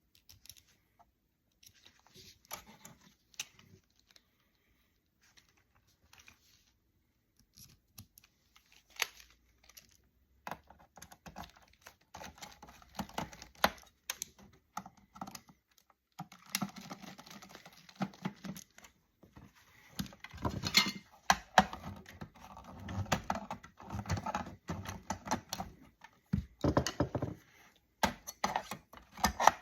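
Close-up clicking, rattling and scraping of hand tools and small plastic and metal parts as a plastic-cased satellite TV receiver is taken apart. Sparse single clicks at first, growing into a busy clatter from about halfway, with a few sharp louder knocks.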